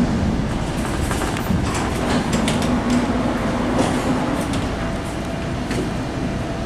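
Tram interior running noise: a low rumble with a steady hum, and scattered clicks and knocks of the wheels on the rails through the middle.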